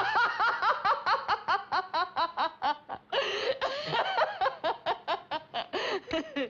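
A woman's long, loud laugh from a film soundtrack: a rapid run of 'ha' pulses, about five a second, each dropping in pitch, with longer drawn-out stretches about three seconds in and near the end.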